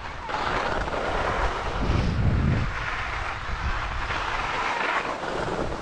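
Skis hissing and scraping over packed snow in a run of swells a second or so long, like a skier making turns, with a brief low rumble about two seconds in.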